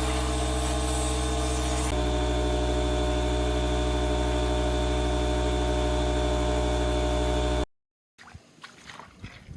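Steady mechanical hum of a running motor, loud and even, with a slight change in pitch about two seconds in. It cuts off abruptly near the end, leaving a few faint clicks and rustles.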